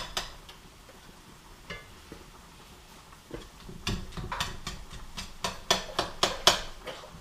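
A cooking utensil knocking and scraping against a frying pan as ground beef is stirred and broken up, quiet at first and then a quick run of clinks starting about four seconds in.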